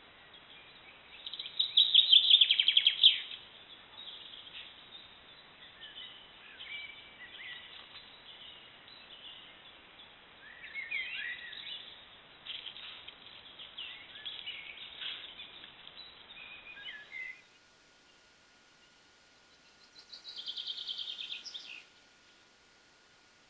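Woodland birds singing and calling, with a loud rapid trill about two seconds in, followed by scattered chirps and calls. After a sudden change about two thirds of the way through, a faint steady tone remains, and one more short trill comes near the end.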